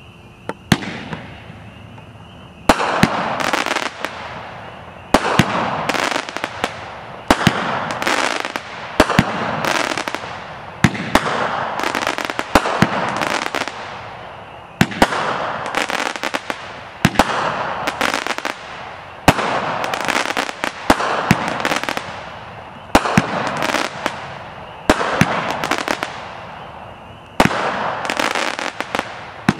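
AFW Outburst consumer firework cake firing its shots one after another, about every two seconds, starting about two and a half seconds in. Each shot is a sharp bang followed by a burst of crackling stars.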